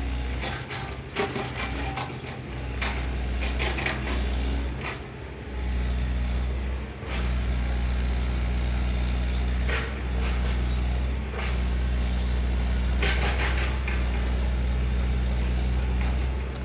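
Excavator engine running steadily, with scattered knocks and clanks over it.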